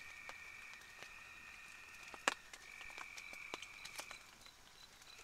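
Frogs trilling steadily outside, in stretches of a second or two with short breaks, along with light clicks and scrapes of a fork in a plastic food container; one sharper click comes a little before halfway.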